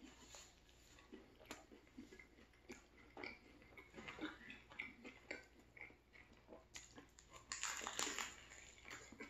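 A person chewing a mouthful of turkey sandwich, with soft irregular mouth clicks. Near the end comes a louder bite into the sandwich's ciabatta bread.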